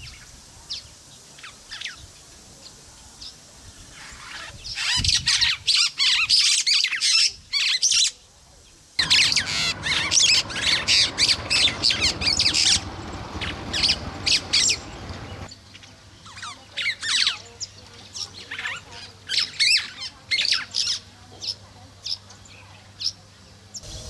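Songbirds chirping and chattering in quick, sharp, repeated calls, loudest in dense bursts from about five to thirteen seconds in, with scattered, quieter calls after that.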